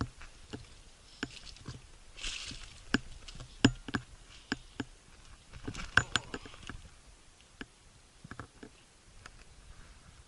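Footsteps on rocky, loose ground: irregular crunches and clicks of stones underfoot, with a short scraping hiss about two seconds in.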